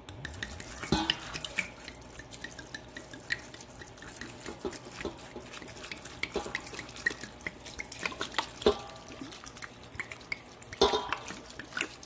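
Dry red wine poured from a bottle into a bowl of cut fruit: a continuous splashing, trickling pour with irregular drips and a few louder splashes.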